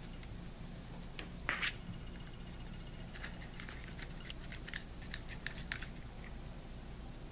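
A thin paintbrush scratching and tapping against a small plastic bat skeleton as black paint is dabbed into its mouth and ribs. A short scratchy rub comes about a second and a half in, then a run of light ticks over the next few seconds, over a low steady hum.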